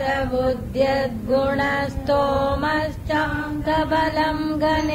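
A single voice chanting a Sanskrit verse slowly and melodically. It holds long notes, with small glides in pitch and short breaks between phrases.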